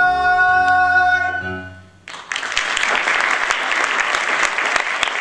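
A male singer holds the song's final note over low accompaniment, and the music fades out about two seconds in. An audience then breaks into steady applause.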